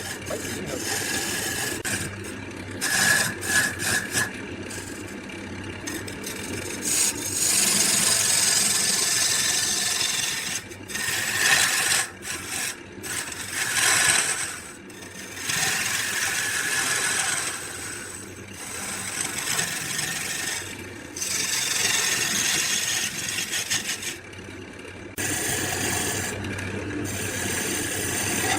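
Wood being worked with a cutting or abrading tool: a rasping, scraping noise that comes in stretches of a few seconds and breaks off abruptly several times.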